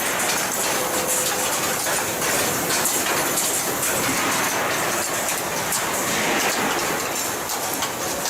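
Steel-coil cut-to-length line running, a steady dense clatter and rattle of machinery with no let-up.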